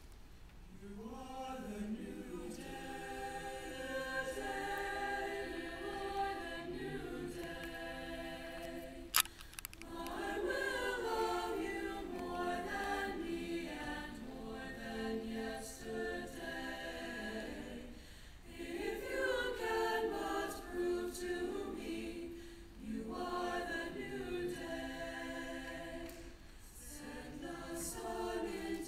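Mixed-voice choir singing a cappella in held chords, phrase by phrase with short breaks between. A single sharp click about nine seconds in.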